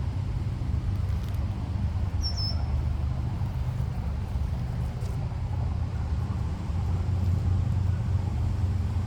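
Steady low road rumble of a car on the move. There is one brief high chirp about two seconds in.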